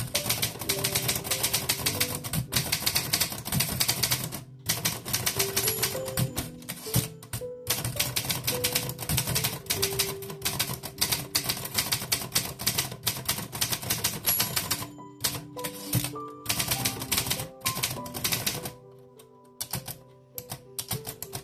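1949 Erfurt (Olympia) Progress manual typewriter being typed on in quick runs of key and typebar strikes with a few short pauses, the typing dropping away briefly near the end. Background music with held notes plays underneath.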